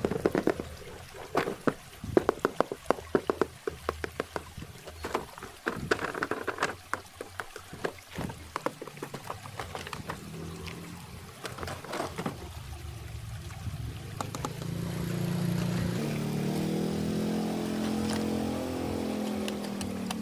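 Water pouring and trickling, with many sharp clicks and ticks over the first half. A steady hum with several tones comes in about two-thirds of the way through.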